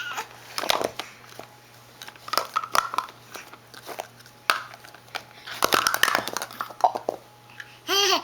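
Plastic stacking cups clicking and knocking together as they are handled and stacked, in scattered sharp taps, with a few short soft baby vocal sounds in between. A woman's voice starts near the end.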